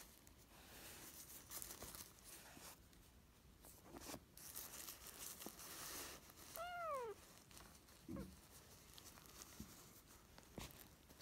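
Soft crinkling and rustling of paper and cloth as a kitten wrestles with a hand, with one short falling mew from the kitten about two-thirds of the way in.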